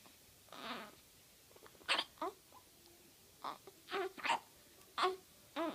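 Baby twins hiccuping: about eight short, sudden hiccups with a little voice in them, some coming in quick pairs.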